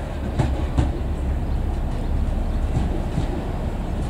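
Diesel engine of a yellow rail tamper rumbling steadily as it runs slowly toward the platform, with two sharp clicks within the first second.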